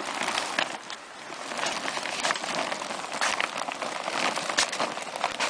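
Folded AquaDam water-storage tube crinkling and rustling as it is unrolled across the ground, a busy run of small crackles.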